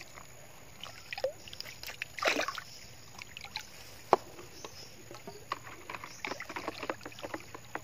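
Water in a plastic bucket sloshing and lightly splashing as water-soluble fertilizer settles into it, then a pole stirring the water to dissolve the fertilizer from about five and a half seconds in, with scattered small splashes and knocks.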